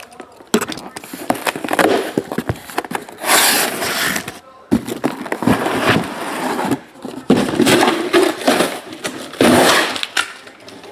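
Cardboard shipping case of shrink-wrapped trading-card boxes being cut open, turned over and lifted off the boxes: repeated bursts of cardboard scraping and plastic-wrap rustling, with a few sharp knocks.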